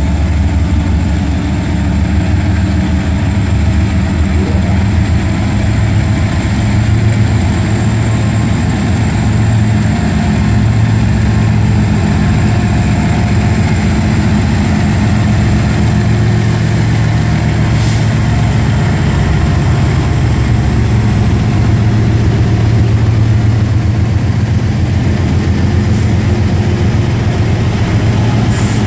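BNSF diesel-electric freight locomotives, GE ES44C4s with GEVO V12 engines and an EMD SD70ACe between them, working under power as they pull a double-stack train past. It is a loud, steady, deep diesel engine drone.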